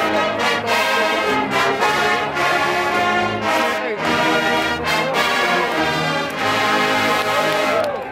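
College marching band playing, its brass section carrying sustained chords that change every second or so.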